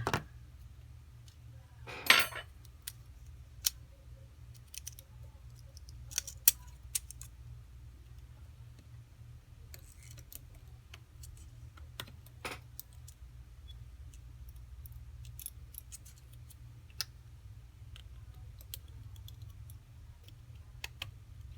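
Scattered small clicks and taps of metal tools and phone parts as an iPhone 4S is taken apart, with a louder clack about two seconds in and another about twelve seconds in. A steady low hum runs underneath.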